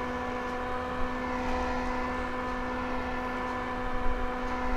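Small handheld electric fan running steadily: a constant motor hum with a whir of air, blowing on a freshly applied layer of toupee glue to dry it. Two faint handling bumps, about a second in and near the end.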